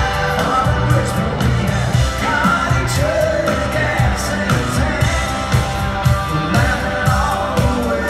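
A live country-rock band playing, with a male lead vocal singing over a steady drum beat, electric guitar and keyboards.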